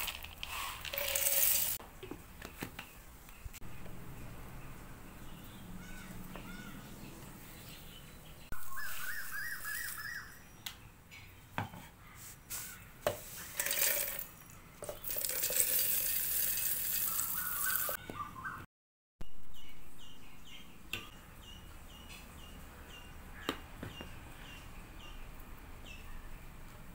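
Roasted chana and dry fruits poured into a stainless steel mixer-grinder jar, rattling and clattering against the metal in several separate bursts, with a softer pour of ground powder near the end. Birds chirp faintly in the background.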